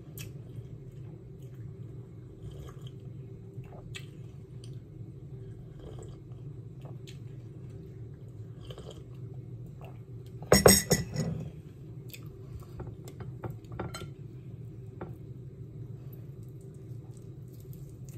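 Tableware sounds during a meal: scattered light taps and clinks of a plate and a ceramic mug, with a louder knock and clatter about ten and a half seconds in, over a steady low hum.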